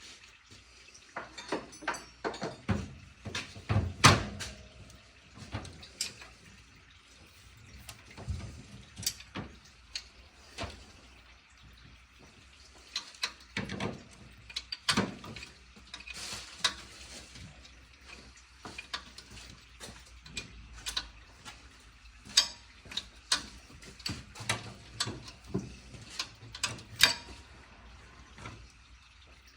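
Hand tools and loose metal engine parts clinking and knocking irregularly: many short, sharp metallic clicks and taps with brief pauses, as fasteners are worked loose during an engine tear-down.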